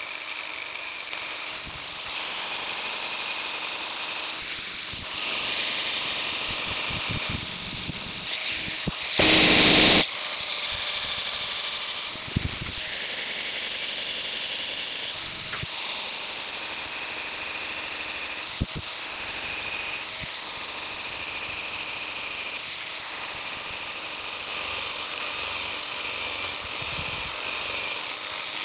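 Biax power scraper running, its reciprocating blade scraping a crosshatch pass into the ground cast-iron ways of a metal planer base. The noise rises and falls a little with the strokes, with one much louder burst of about a second roughly nine seconds in.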